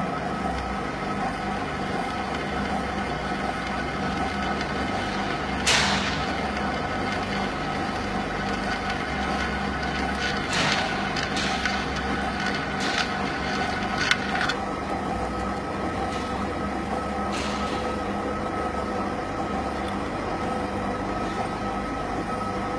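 Electric drill running steadily with a 3mm cobalt bit cutting into a hardened grade 12.9 Allen bolt. A handful of sharp ticks cut through the drilling, the loudest about six seconds in and a cluster a few seconds later.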